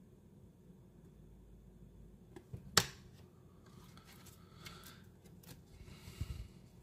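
Pokémon trading cards handled by hand: a sharp click about three seconds in, then a quiet rustle and slide of cards as the next few are picked out of a cardboard box.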